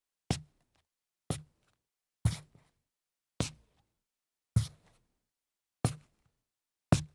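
Sneaker footsteps scuffing on a hollow wooden floor: seven separate steps, roughly one a second, each a short hollow thud with a brief rubbery scrape, with silence between.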